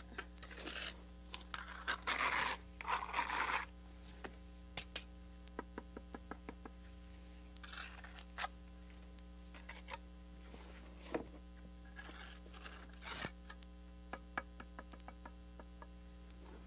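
Steel mason's trowel scraping wet mortar across brick, with three strong strokes in the first few seconds and a few more later, and scattered light clicks and taps in between.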